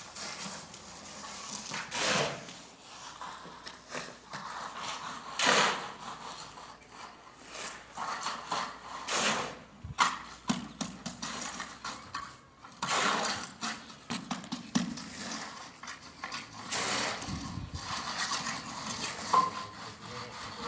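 Irregular scraping and knocking, with sharp clicks about ten seconds in and near the end.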